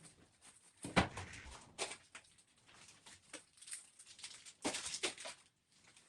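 Objects being handled and set down while a refrigerator is cleaned out: a loud knock about a second in, a lighter one near two seconds, and a quick run of clatters near five seconds, with soft rustling and handling noise between.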